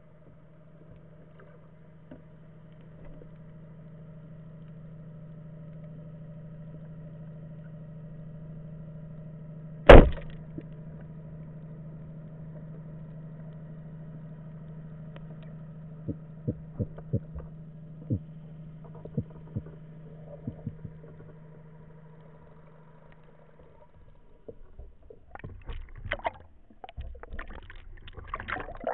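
Underwater shot of a rubber-band speargun: one sharp, loud crack about a third of the way in as the bands release and the spear is fired, over a steady low hum. A few sharp clicks and knocks follow, then busier water noise and knocking near the end as the shooting line is hauled in.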